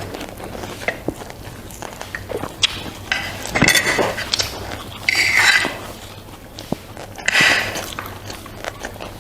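A person eating close to the microphone: scattered clicks of a utensil against a dish, with three louder bursts of eating noise about three and a half, five and seven seconds in.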